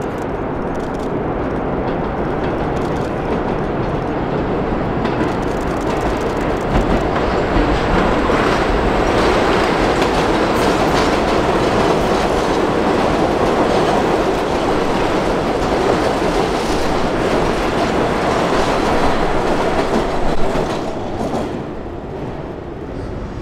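Vintage New York subway train of St. Louis Car Co. R33 and R36 cars passing close by on an open-air track, wheels clacking over the rail joints. It grows louder, is loudest through the middle, and fades near the end.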